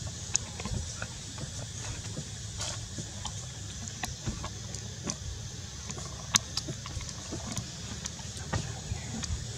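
Steady outdoor background of a low rumble and a high hiss, dotted with scattered small clicks and ticks. There is no crying or calling from the infant monkey.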